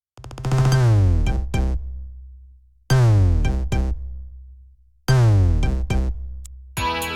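An Android Ice Cream Sandwich ringtone playing. It is an electronic loop: a deep falling sweep with a few sharp hits, repeated three times about every two and a half seconds, each fading away. Near the end a different ringtone starts, with sustained synth notes.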